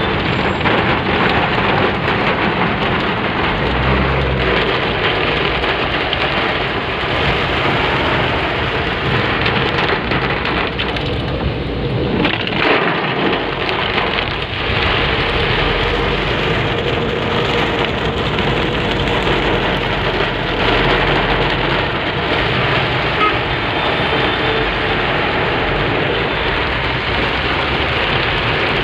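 Heavy rain pelting a car's roof and windscreen, heard from inside the cabin as a dense, steady, loud hiss of a downpour.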